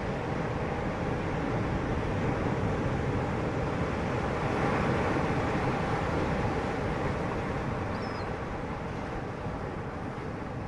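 Motorboat engine running steadily under way, mixed with wind on the microphone.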